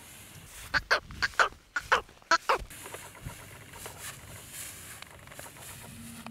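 A fowl clucking: a quick run of about eight short clucks, mostly in pairs, starting about a second in and lasting about two seconds.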